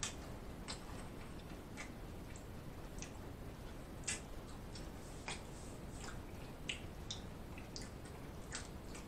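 Close-miked mouth sounds of eating: soft, wet lip smacks and chewing clicks at an irregular pace, roughly one a second.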